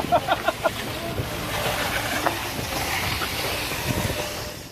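Steady rushing noise, like wind buffeting the microphone, with a quick run of about six short sharp sounds in the first second.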